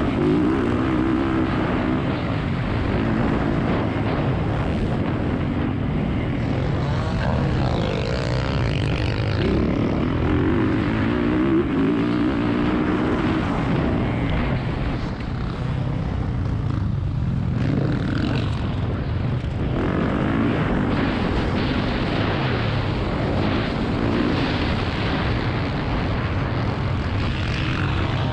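Motocross bike engine running hard under the rider, its pitch rising and falling over and over as the throttle is worked and the gears are changed.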